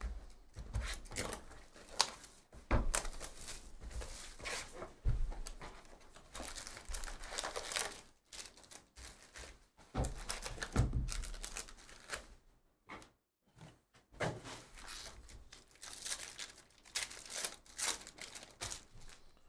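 Foil-wrapped trading card packs crinkling as they are pulled out of a cardboard hobby box, and a foil pack torn open, with a few dull knocks of the box being handled.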